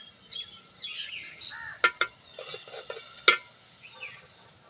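A metal spoon clinking and scraping against a metal cooking pot, with three sharp clinks, the loudest about three seconds in, while small birds chirp throughout.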